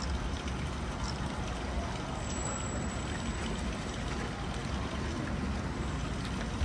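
Heavy rain falling steadily on a paved outdoor plaza, an even hiss and patter, with a low rumble underneath.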